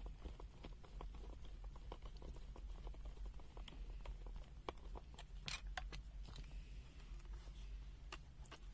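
Faint, scattered clicks and rustles of a handheld plastic multimeter being handled, over a low steady background hum.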